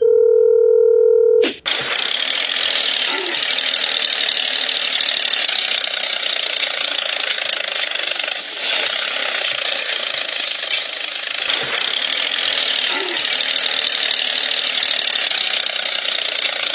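A short steady electronic beep, then a continuous rasping mechanical noise with a few faint clicks.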